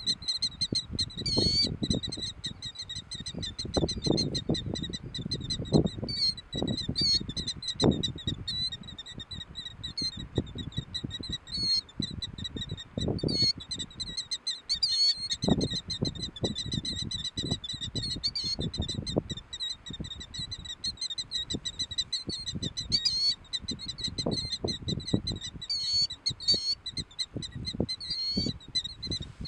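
Killdeer calling in rapid, repeated high notes that run on almost without pause, over a low, uneven rushing noise that swells and fades irregularly.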